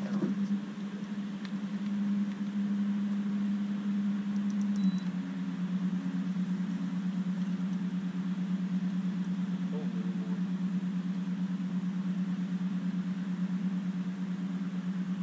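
A boat motor runs at trolling speed with a steady low drone. Its tone shifts slightly about five seconds in and then runs on evenly.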